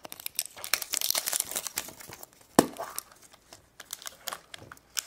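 Wrapper of a surprise egg being crinkled and torn open by hand, a dense irregular crackling, with one sharp snap about two and a half seconds in.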